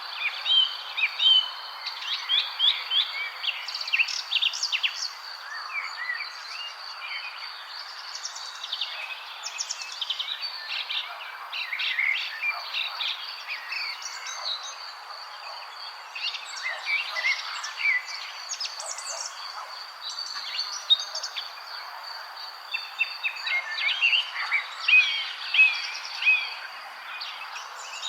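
Many songbirds chirping and trilling over one another in a busy chorus, with a steady thin high tone and a soft even hiss beneath.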